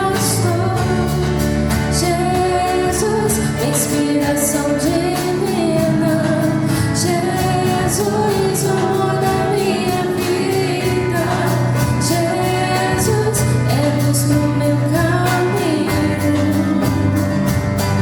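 A live band plays a song while a woman sings the melody over chords and a drum beat with regular cymbal strikes.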